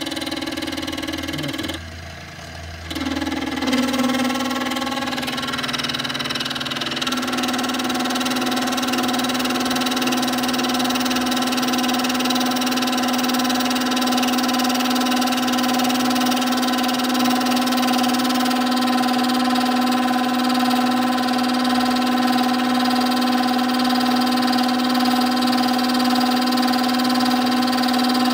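Small milling machine running steadily while a dovetail cutter cuts into a metal block, a constant machine hum with many overtones. The sound drops briefly about two seconds in, then the steady running resumes.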